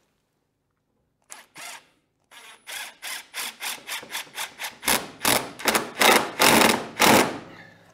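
Cordless impact driver driving a screw into the crosscut sled's fence in a run of short trigger bursts, three to four a second, growing louder as the screw goes in, with longer bursts near the end as it seats.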